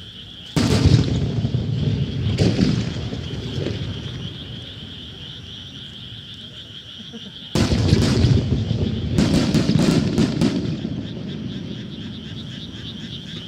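Aerial fireworks shells bursting: a heavy boom about half a second in and another about two seconds later, each rolling away over a few seconds, then a louder boom near eight seconds followed by a quick volley of sharp cracks.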